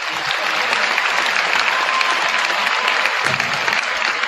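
Large crowd applauding, dense and steady clapping.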